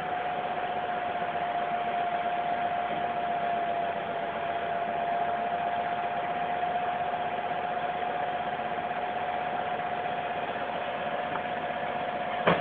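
Cargo truck engine idling steadily under a wash of noise, with a steady high-pitched tone over it and a brief knock near the end.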